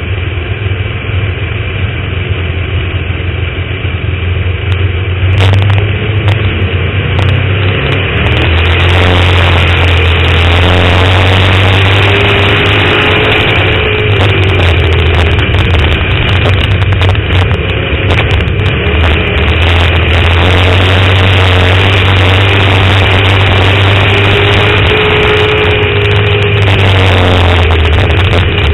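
Dirt-track race car's engine heard from a camera mounted on the car, quieter at first, then louder about five to eight seconds in as the car picks up speed. It stays loud and steady, with small rises and falls in pitch.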